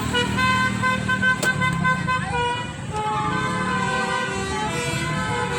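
Vehicle's multi-tone musical telolet horn (basuri type) playing a melody in held notes, over a low engine rumble.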